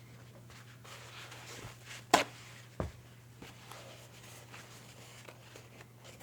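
Damp paper towel rubbing and wiping over a baby sulcata tortoise's shell, with a sharp click a little after two seconds and a duller knock just before three seconds, over a steady low hum.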